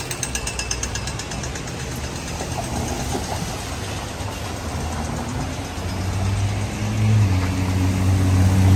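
Traffic on a wet street: rapid, evenly spaced ticking from a pedestrian crossing signal in the first second or so. Later a car engine grows steadily louder as it passes close by, its note stepping up in pitch about seven seconds in.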